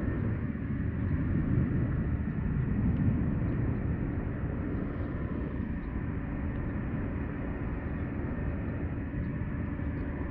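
Steady low rumble of distant city noise, swelling slightly over the first few seconds, with a few faint ticks above it.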